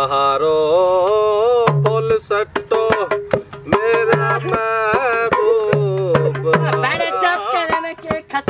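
A folk song sung in long, wavering held notes over a dholak, a two-headed barrel hand drum, beaten in a quick, steady rhythm.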